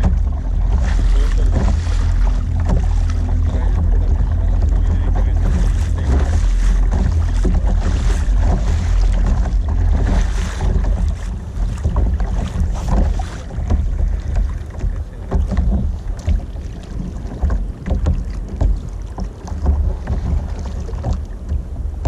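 Wind buffeting the kayak-mounted camera's microphone in a heavy low rumble, with water slapping and splashing against the plastic kayak hull. It is steady for the first half, then comes in uneven gusts.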